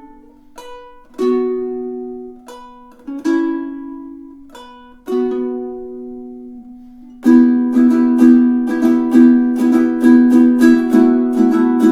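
Magic Fluke M20 tenor ukulele in re-entrant baritone tuning (dGBE with a high D) on Living Water strings: a few chords struck singly and left to ring out, then from about seven seconds in a steady rhythmic strum.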